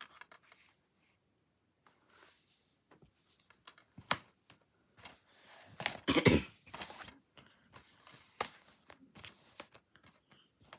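Plastic DVD cases being handled: scattered clicks, taps and rustles, with the loudest clatter about six seconds in.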